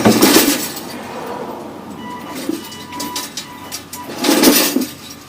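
Remote-controlled electric lawn mower running, with a faint steady motor whine and two louder noisy surges, one at the start and one about four seconds in.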